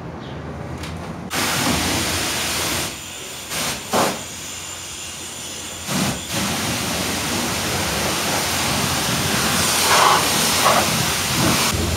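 Pressure-washer wand at a self-serve car wash spraying a jet of water onto a car's bodywork: a steady hiss that starts about a second in and drops away briefly a few seconds later before resuming.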